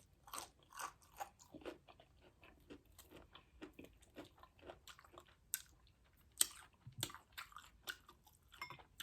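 Close-miked chewing and crunching of crispy fried food, a quiet run of irregular crunches with a few sharper bites about six and a half and seven seconds in.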